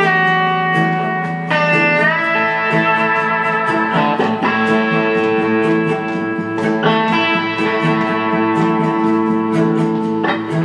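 Instrumental passage of a live folk song played on guitar: held notes, with one note sliding up in pitch about two seconds in.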